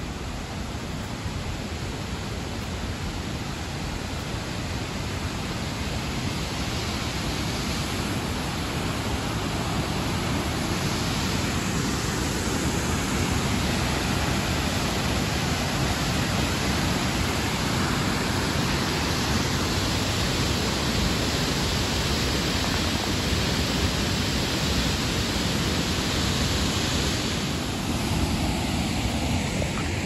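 Waterfall rushing: a steady, loud wash of falling water that grows louder over the first several seconds and eases slightly near the end.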